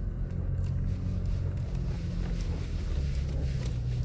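Toyota Tacoma TRD Off-Road's engine running at low revs as the truck crawls over a hump in four-wheel drive, the engine note shifting about three seconds in.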